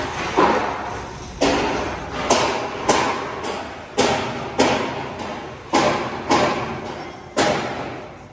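Hammer blows on steel, about a dozen sharp strikes spaced roughly half a second apart, each ringing briefly.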